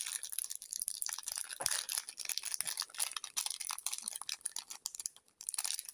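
Small plastic zip-lock bag crinkling and rustling as it is handled in the fingers, a quick irregular run of crackles.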